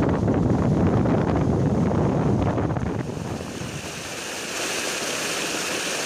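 Wind buffeting the microphone. About three seconds in it gives way to the steady hiss of water cascading over rocks.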